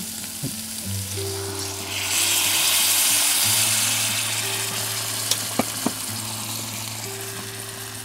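Water poured into a hot cast-iron Dutch oven of browned beef and vegetables, sizzling and hissing as it hits the hot pot. The hiss swells sharply about two seconds in and then slowly dies down, with a few light clicks a little past the middle.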